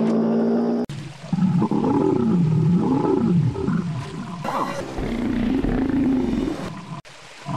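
Dinosaur sound effects for a Stegosaurus, edited together: a held low bellow cut off abruptly about a second in. Then a run of low calls that waver up and down in pitch, a brief hissing burst near the middle, and another low call that stops suddenly near the end.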